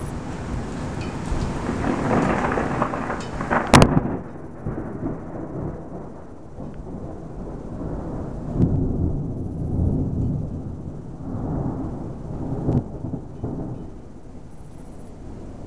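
Thunder rumbling and rolling. The rumble builds to a sharp, loud crack about four seconds in, then rolls on in several lower swells.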